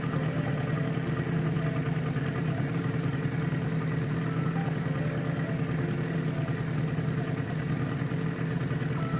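Yamaha 8 hp outboard motor running steadily at an even speed, heard close up from aboard the boat it drives.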